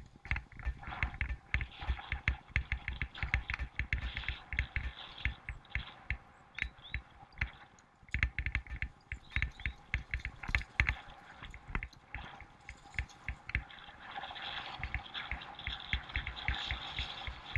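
Bicycle rattling and clattering as it is ridden fast over bumpy grass and dirt, with dense irregular knocks and thumps and a rushing hiss that grows stronger near the end.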